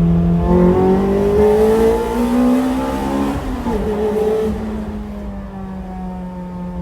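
Toyota 2ZZ-GE four-cylinder in an MR2 Spyder accelerating hard into its high-rpm lift cam, engine pitch rising steadily. The revs drop about three and a half seconds in, then the engine runs on at a steadier, fading note.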